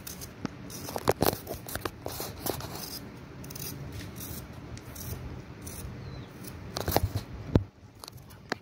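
Hand-held vegetable peeler with a serrated blade scraping the skin off a raw potato in repeated short strokes, with a few louder sharp clicks about a second in and again around seven seconds.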